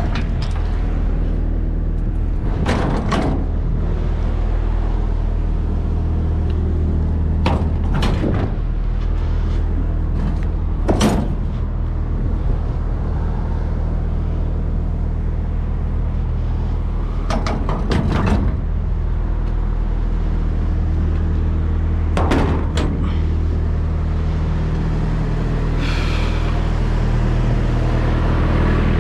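Parked lorry's diesel engine idling steadily, with six short knocks and clanks spread over the time as the trailer's pallet box latch and lid are handled.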